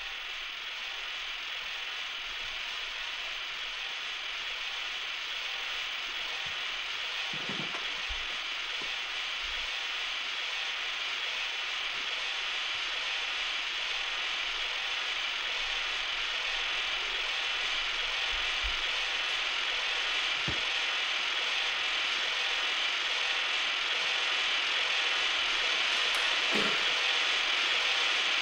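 Dense, steady mechanical rattling that grows slowly louder, with a few faint low thumps.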